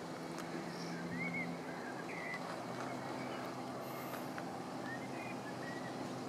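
Steady low vehicle engine hum under a noisy background, with a few short, faint bird chirps over it.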